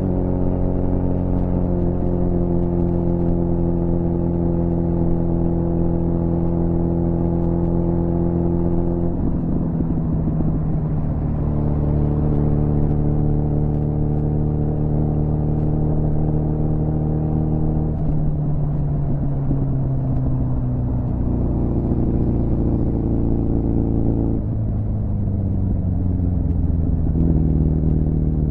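2006 Suzuki GSF 650 Bandit's inline-four engine running through a cut-down Beowulf exhaust with no baffle. It is held at steady engine speeds. The note steps down about a third of the way in, sags slowly past the middle, then rises and drops again twice near the end.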